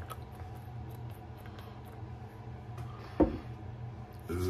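Quiet handling of a glass lotion bottle with faint small ticks and rustles, and one sharp click about three seconds in, over a low steady hum.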